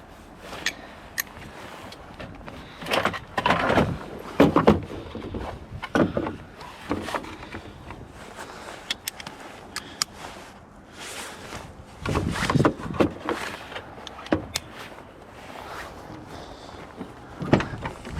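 Irregular knocks, clanks and rustling from hands-on work on a truck, with no engine running and no cranking.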